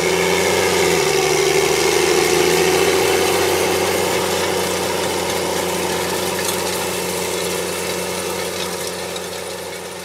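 Challenger MT765 tracked tractor's diesel engine running steadily under load as it pulls a Väderstad Rapid seed drill. It is loudest about two seconds in and then fades away toward the end.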